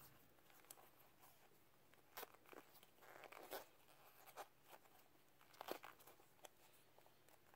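Near silence with faint, scattered scuffs and clicks as a metal beadlock ring is worked into a rubber RC crawler tyre by hand.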